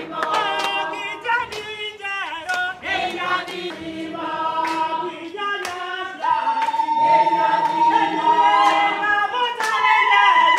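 A group of people singing together unaccompanied, with a few scattered handclaps. About six seconds in, one high voice holds a long steady note over the others.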